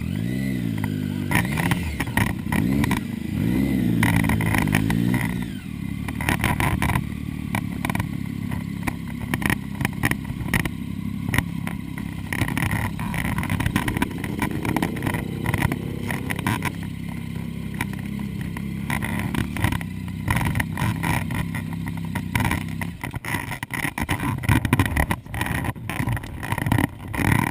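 Motorcycle engine running on the move: revs swing up and down over the first few seconds, hold steady, climb again about halfway through, and turn choppy and uneven near the end.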